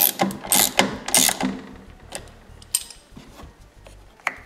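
Ratchet wrench with a 16 mm socket clicking as it tightens a snowmobile's rear axle bolt: three quick bursts of ratcheting in the first second and a half, then fainter scattered clicks and one sharper click near the end.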